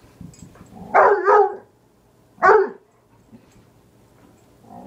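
Dog barking three times: two quick barks about a second in, then a single bark a second later.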